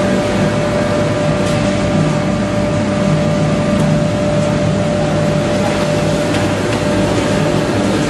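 Wood block making machine running: a loud, steady mechanical drone with a constant whine.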